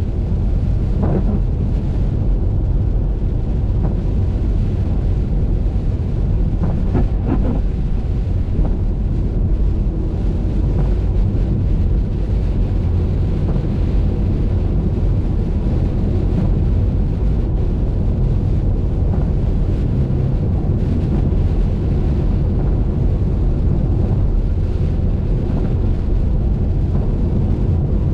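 Steady low rumble of a car driving on a wet highway: tyre and road noise with wind buffeting the microphone. Brief higher swishes cut through about a second in and again around seven seconds in.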